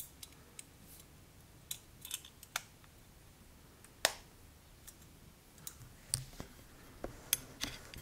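Irregular small metallic clicks and taps from an antique verge fusee pocket watch as its hinged movement and bezel are swung and pressed shut in the fingers. The sharpest click comes about four seconds in.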